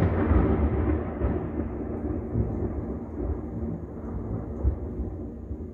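Rolling thunder, a deep rumble that slowly dies away over several seconds, heard from indoors through a window.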